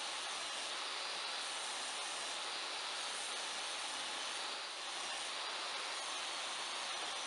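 A woodworking power tool running steadily with a hissing noise, dipping briefly about four and a half seconds in.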